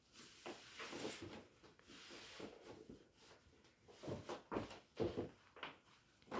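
Cardboard packaging being handled: a printed card sleeve scraping as it is slid off a cardboard box, then a few short knocks of the box against a glass tabletop.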